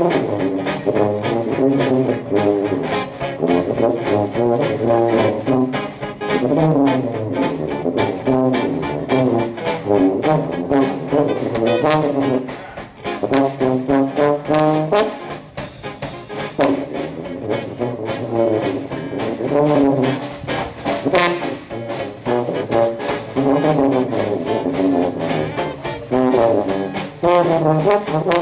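Traditional Dixieland jazz band of cornet, clarinet, trombone, piano, guitar, drums and sousaphone playing, with the brass to the fore over a steady beat.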